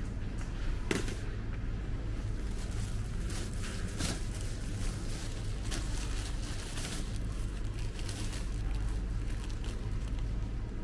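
A plastic produce bag of apples crinkling and rustling as it is picked up and handled, several short crackles, over a steady low hum.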